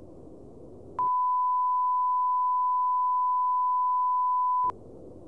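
Broadcast test tone: a single steady high beep of the kind played with colour bars to signal a technical interruption. It starts abruptly about a second in, holds for nearly four seconds and cuts off suddenly.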